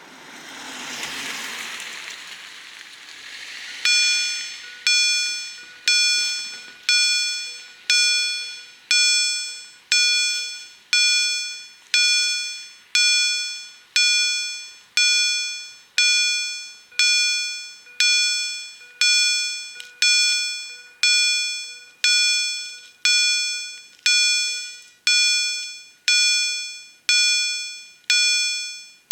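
Level-crossing warning bell (EHL electromechanical bell) starting to ring about four seconds in, struck about once a second, each strike ringing out and dying away: the crossing is warning that a train is approaching. Before the bell starts, a rushing noise swells and fades.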